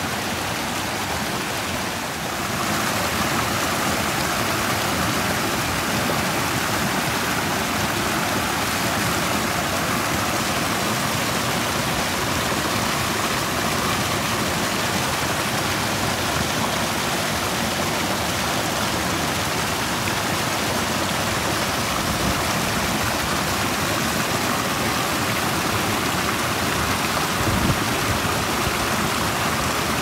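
Small rocky stream tumbling around a boulder in a low cascade: a steady rush and splash of whitewater that grows louder about two seconds in.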